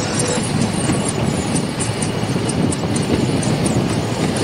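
Steady engine and road noise of a moving vehicle, a dense low rumble with faint regular rattling ticks.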